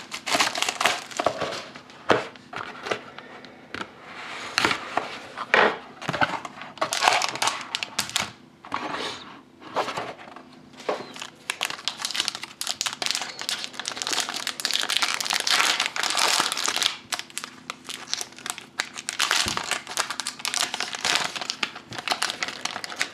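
Plastic shrink wrap and a card-pack wrapper crinkling and crackling irregularly as they are peeled and torn open by hand.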